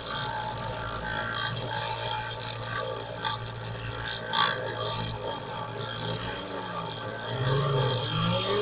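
Homemade mini CNC router engraving wood: the small printer-motor spindle spins a teardrop Dremel cutter with a steady hum, while the axis stepper motors whine in tones that rise and fall as the gantry moves. Two sharp clicks come partway through.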